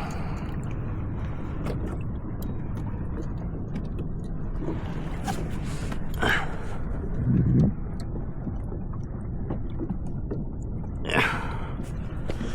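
Steady low rumble of wind and sea noise on the microphone at sea, with a few short, sharper sounds, about six and eleven seconds in.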